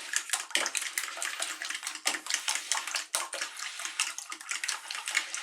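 Raw eggs being stirred briskly in a bowl with a utensil: quick wet sloshing with rapid, irregular ticks of the utensil against the bowl.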